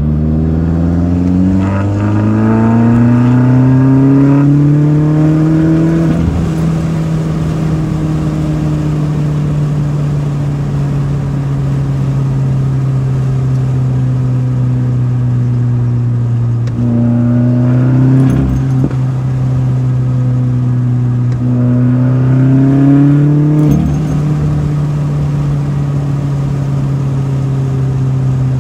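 2017 Subaru WRX turbocharged flat-four with a Grimmspeed catted J-pipe and Carven cat-back exhaust, heard from inside the cabin with the driver's window down. The engine revs up hard for about six seconds, then runs steadily at cruise. It pulls up in pitch twice more, and each pull cuts off briefly at a gear change.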